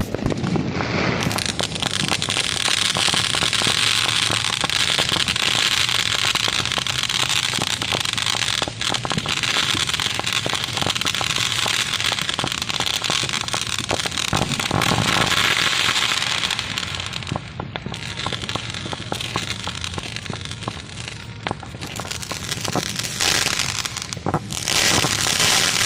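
Fireworks going off: a continuous crackling hiss thick with rapid sharp pops. It eases somewhat about two-thirds of the way through and builds again near the end.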